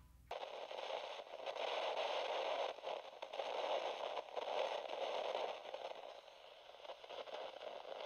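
A paintbrush rubbing over watercolour paper: a soft, uneven scratchy rustle of strokes. It is loudest through the first half and grows fainter as the painting stops near the end.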